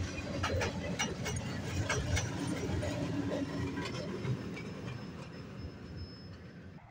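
Freight train cars rolling past, their wheels clacking over the rail joints. The clacks thin out after about four seconds and the rolling sound fades as the train moves away.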